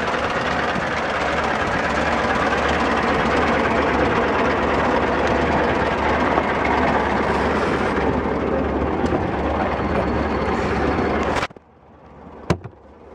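1910 Paterson touring car on the move, a steady loud rush of engine, road and wind noise heard from on board the open car. Near the end the sound cuts off suddenly, leaving a quieter stretch with a few sharp knocks.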